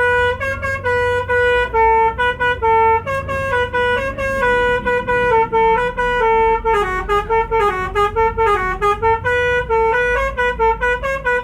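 Telolet bus horn, a multi-tone musical air horn, tooting a fast tune of short notes that hop up and down between a few pitches, dipping into lower, wavering notes around the middle. A low rumble runs underneath.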